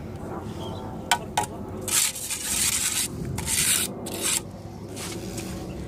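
Concrete block masonry work: a trowel and block scraping and rasping against wet mortar as a block is set on the wall. There are two sharp taps about a second in, then three rough scrapes about two to four seconds in.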